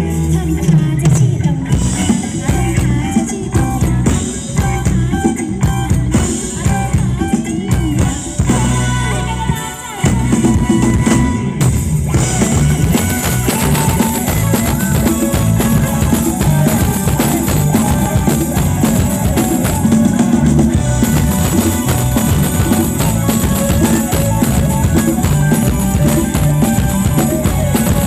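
Thai ramwong dance music from a live band played loud through a PA, led by a drum kit with bass drum and snare. The beat briefly drops out about ten seconds in, then comes back fuller with cymbals.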